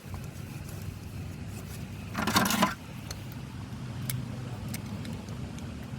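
Small metal clicks and a brief, loud metallic scrape about two seconds in, from working a brake caliper bolt by hand, over a steady low hum.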